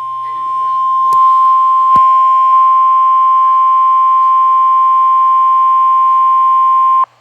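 Emergency Alert System attention signal: one long steady single-pitched tone that cuts off suddenly near the end. It announces a severe thunderstorm warning about to be read.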